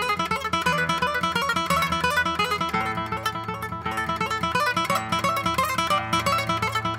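Nylon-string classical guitar played solo and fingerpicked: a quick, continuous run of plucked notes over held bass notes.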